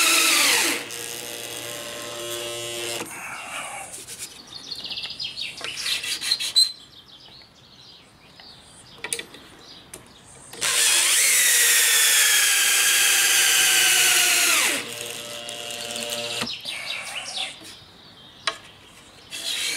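Makita cordless drill boring and countersinking screw holes in a board. Its high motor whine winds down and stops about a second in, then comes back for a run of about four seconds around the middle and winds down again, with scraping and small clicks from the bit and board between the runs.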